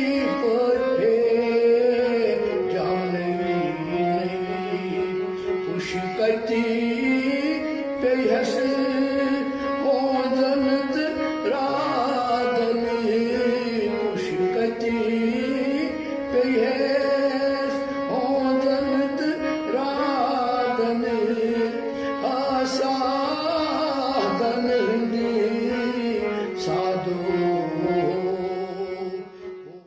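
Devotional song, a voice singing with instrumental accompaniment, fading out at the very end.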